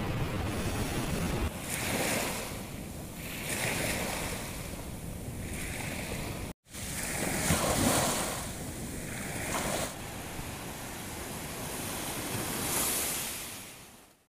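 Small waves washing up over a sandy beach and drawing back in repeated surges, with wind buffeting the microphone in the first second or so. The sound drops out for a moment about halfway through and fades away at the end.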